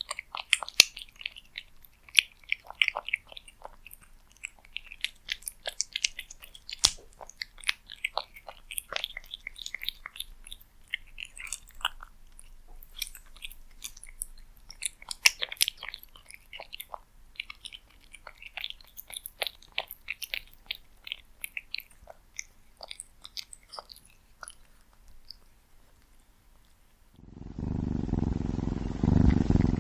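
Cat chewing food close to the microphone: quick, uneven runs of crisp clicks and smacks. About 27 seconds in, this gives way to loud, steady purring.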